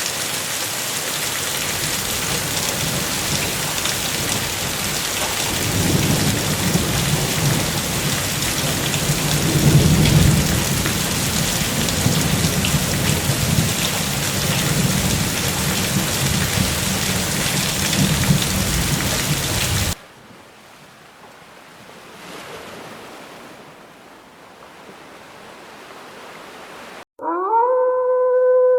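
Heavy rain with rolling thunder, the rumbles swelling about six and ten seconds in; the rain cuts off abruptly to a much softer hiss about twenty seconds in. Near the end, after a short gap, a long howl starts, holding a steady pitch.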